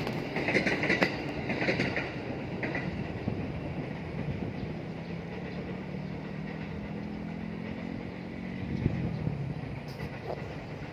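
A motor vehicle engine humming steadily, growing a little louder in the second half, with a few short high chirps in the first couple of seconds.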